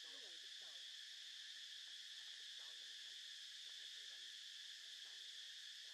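Faint, steady, high-pitched chorus of insects droning without a break.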